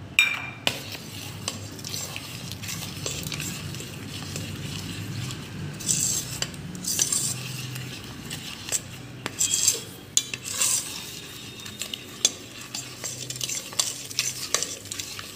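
Steel spoon stirring thin besan batter in a stainless steel pot: continuous wet swishing with irregular clinks and scrapes of the spoon against the pot's sides.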